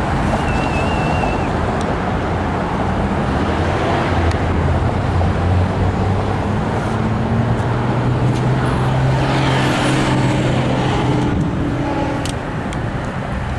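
Road traffic: car engines running with a steady hum and tyre noise, and a vehicle passing louder between about nine and eleven seconds in.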